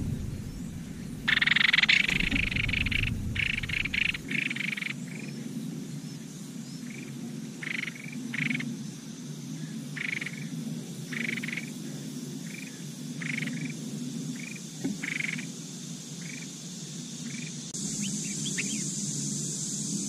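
A nestling songbird's begging calls: a loud, rapid run of high calls for the first few seconds, then short single calls repeated about once a second, over a steady low hum.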